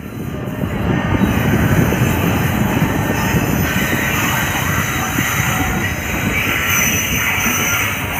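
Train passing at close range: a WAG-5 electric locomotive hauling a rake of MEMU coaches. It makes a steady rolling rumble of wheels on rail with a hiss above it, swelling up over the first second.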